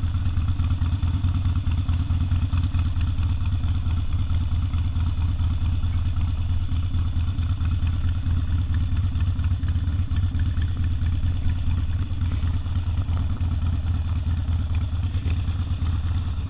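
Harley-Davidson Sportster air-cooled V-twin with open exhaust idling steadily, a deep even rumble with no revving.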